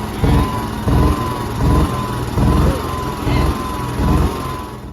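John Deere Gator utility vehicle engine running rough, its speed surging and dropping about once every 0.7 seconds, with a faint wavering whine over it. It cuts off suddenly at the end.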